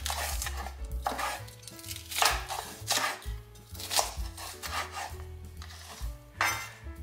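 A kitchen knife slicing a green horn pepper into strips on a wooden cutting board, each stroke knocking against the board about once a second, over soft background music.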